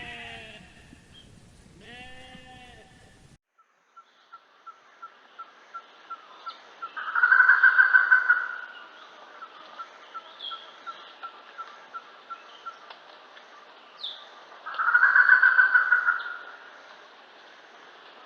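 Two bleats, then a different animal's call: a steady series of evenly spaced ticks, about two or three a second, broken twice by a loud buzzing call about eight seconds apart, with a few faint high chirps.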